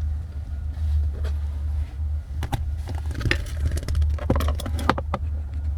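A screw being backed out of a plastic steering column cover with a Phillips screwdriver: scattered light clicks, knocks and scrapes of the tool and plastic trim, with more of them in the second half, over a steady low hum.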